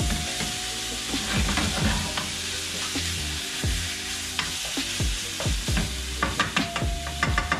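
Diced fatty pork sizzling in a non-stick frying pan as a wooden spatula stirs it, with a spatula scrape every second or so that comes quicker near the end. The pork is frying to render its fat.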